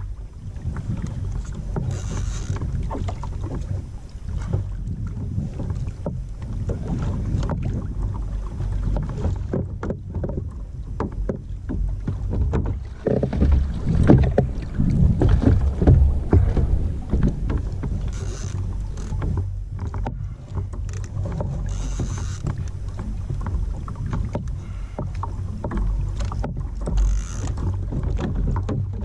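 Water sloshing against a kayak hull with low wind rumble on the microphone, and a stretch of louder splashing about halfway through.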